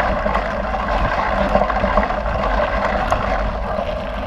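Mountain bike riding over packed dirt: a steady rush of wind on the microphone mixed with the knobby front tyre rolling, and scattered small rattling clicks from the bike.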